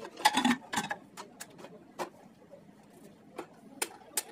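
Aluminium pressure cooker lid being fitted and closed: a short scrape of metal on metal near the start, then a scattering of light clicks and knocks as the lid is seated and locked.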